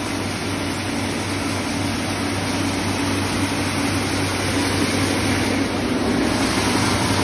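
Heavy-duty wheat cleaning and grinding machine running steadily: a constant hum under an even rushing noise, growing slightly louder over the few seconds.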